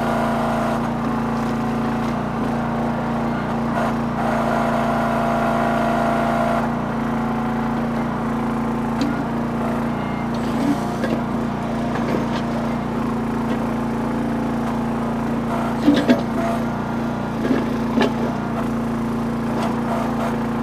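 Small engine of a towable backhoe running steadily while it digs in rocky ground, with a higher whine coming in for a couple of seconds early on. Clunks and knocks of the bucket and machine working, loudest about three-quarters of the way through.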